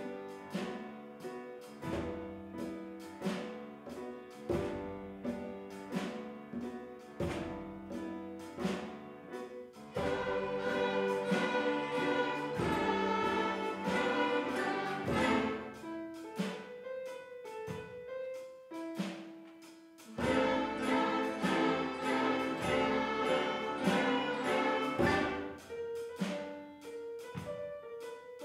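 Children's school orchestra of strings, woodwind, brass and percussion playing a swing piece over a steady beat. The full band comes in louder about ten seconds in, drops back around sixteen seconds, and swells again near twenty seconds.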